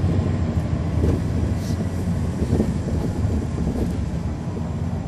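Caterpillar C13 diesel engine of a 2009 NABI 40-SFW transit bus running, heard from the rear seats inside the bus as a steady low drone that gradually gets quieter.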